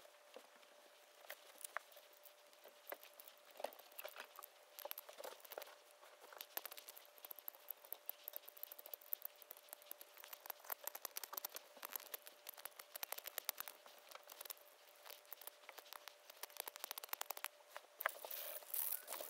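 Faint, irregular scratches and clicks of a utility knife blade scraping and shaving a tiny wooden lure body held in the fingers. The scraping grows busier and louder in the last couple of seconds.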